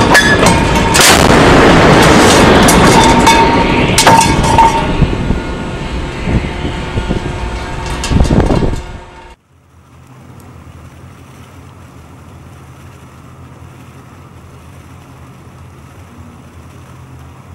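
Warship's Mk 45 5-inch deck gun firing: heavy shots about a second in, at four seconds and near eight seconds, over a loud continuous rush. After about nine seconds the sound cuts off abruptly to a low steady hum.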